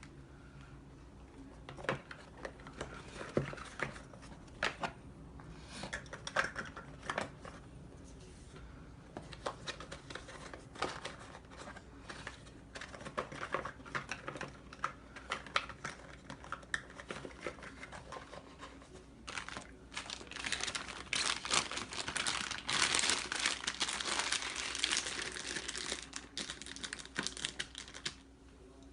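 Packaging crinkling and rustling as items are handled, with scattered light clicks and knocks; it gets busier and denser for the last several seconds.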